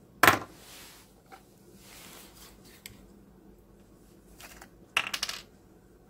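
A sharp metallic clink with a short ring about a quarter second in, then near the end a quick cluster of small plastic clicks as the cap of an adhesive bottle is twisted off and set down.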